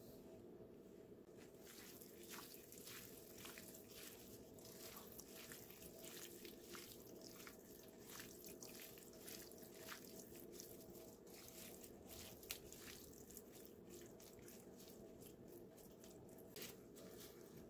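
Faint crinkling of disposable plastic gloves and soft squishing of shredded chicken as gloved hands toss it in sauce, a dense run of small crackles over a steady low hum.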